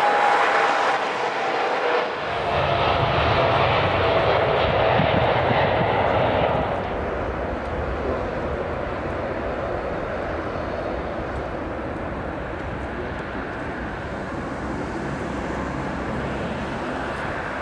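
Jet engines of a landing Boeing 747 freighter: a whining tone over the engine noise at first. From about two seconds in, a deeper rumble is loudest for a few seconds, then eases to a steady, lower rumble as the jet rolls out along the runway.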